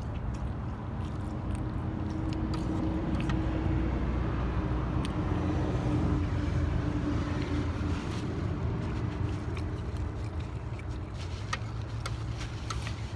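A car's engine running close by: a low rumble and hum that builds over a few seconds, holds, and fades away toward the end. Scattered small clicks sound over it.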